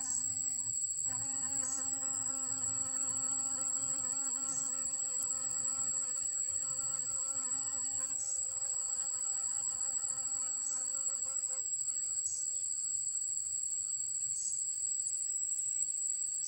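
Blue-banded bee buzzing in flight: a steady pitched hum that breaks off briefly about a second in and stops about twelve seconds in. Under and after it, a constant high-pitched insect trill.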